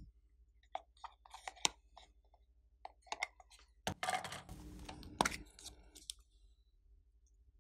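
Slime being mixed and worked, giving irregular small clicks and crackles, with a denser squishing stretch and two sharp clicks about four to five seconds in, then it goes quiet.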